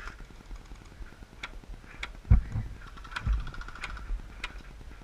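Scattered sharp snaps of airsoft guns firing single shots during a skirmish, with two dull thumps about two and three seconds in.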